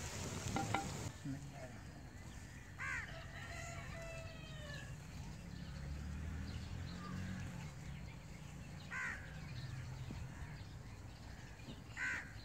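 A crow cawing three times, single caws about three seconds in, about nine seconds in and near the end, with a fainter bird call after the first caw, over a low background hum. In the first second a brief noisy rush with a couple of clicks is the loudest sound.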